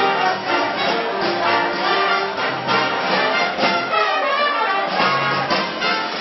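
A swing big band playing, its trumpets and trombones carrying the tune over drums that keep a steady beat.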